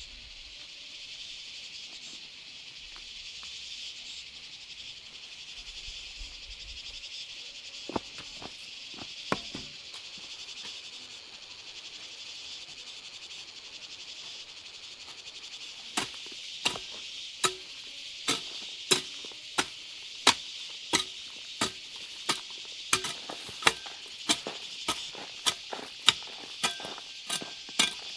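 A steady chorus of insects, with two sharp knocks about a third of the way in. From about halfway, a hand tool strikes repeatedly and evenly, about one and a half blows a second.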